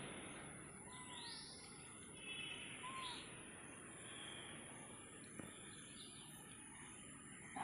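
Faint outdoor ambience: a few short bird chirps and a brief trill over a steady high insect drone and a background hiss.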